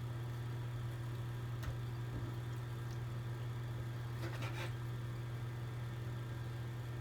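A steady low mechanical hum with faint steady tones above it. A faint click comes about a second and a half in, and a short patter of light clicks follows a little past the middle.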